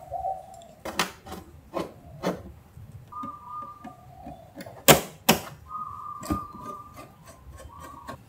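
Hard plastic clicks, taps and knocks as a 3D-printed ABS scooter fairing is pushed and snapped into place on the scooter's body clips; the loudest knock comes about five seconds in. Faint held whistle-like tones sound in the background.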